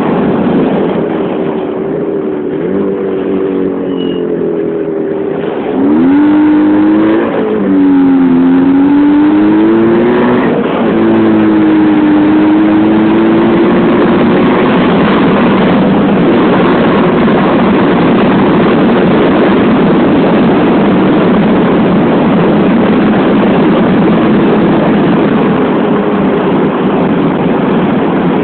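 Jawa 350 type 639 two-stroke twin motorcycle engine running on the road. Its pitch rises and drops back several times in the first ten seconds or so. After that it settles into a steady loud rush of engine and wind on the microphone at speed.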